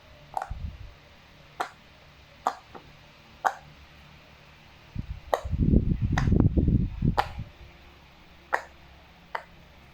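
Silicone pop-it fidget toy bubbles being pressed, giving about eight short, sharp pops at an uneven pace of roughly one a second. A louder low rumble of handling noise runs for about two seconds in the middle.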